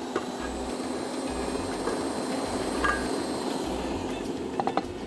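Electric stand mixer running steadily, whisking egg whites, with a few light taps of a spoon against a bowl.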